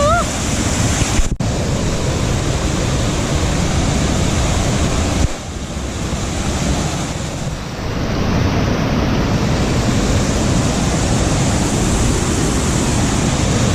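Rushing water of a mountain stream or cascade, a loud steady rush, briefly broken about a second in and again about five seconds in.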